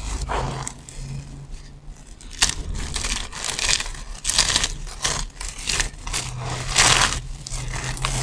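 Dry soap shavings crunching and rustling as hands squeeze and rake through a pile of them, in a run of separate crushes. Partway through, a chunk of crumbly yellow soap is broken up between the fingers.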